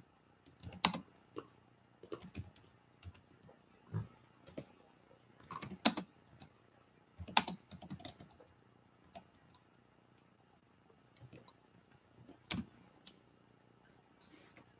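Typing on a computer keyboard: irregular runs of keystrokes, with a pause of about two seconds past the middle and one sharper key click near the end.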